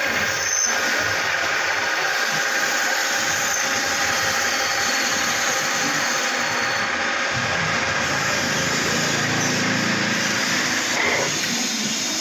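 Machine-shop machinery running steadily: a constant mechanical noise with a few steady whining tones, a little fuller in the low end in the second half.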